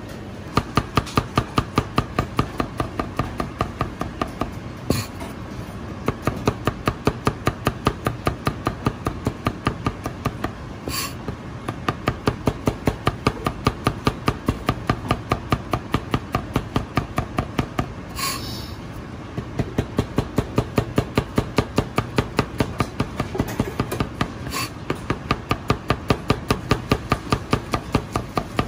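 Chinese cleaver rapidly thin-slicing garlic cloves on a cutting board: quick, even knocks of the blade on the board at about five strokes a second, in several runs with brief pauses between them.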